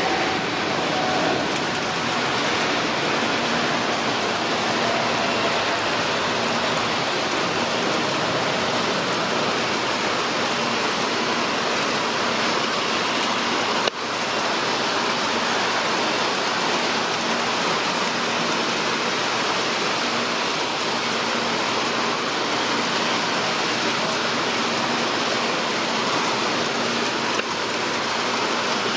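Boeing 787-9's GEnx-1B turbofan engines at takeoff thrust, a loud, steady rushing noise through the takeoff roll and climb-out, mixed with tyre spray on a wet runway. A short click and dip in level about halfway through.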